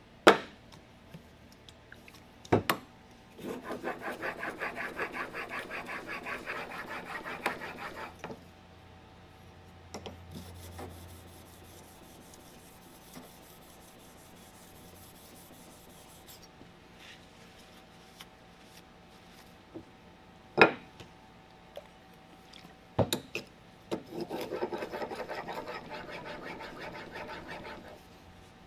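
Stanley No. 4 plane iron, clamped in a roller honing guide, rubbed back and forth on a wet sharpening stone to hone the bevel. The strokes come quickly, about four a second, in two bouts of a few seconds each. A few sharp knocks fall between the bouts.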